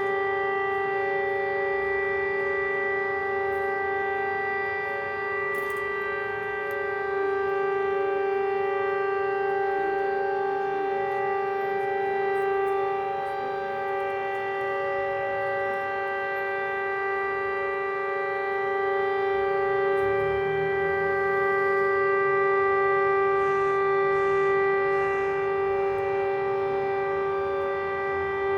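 Civil defence warning siren sounding a steady, unwavering tone: the 'Attention everyone!' public alert signal, given here as a practice alarm.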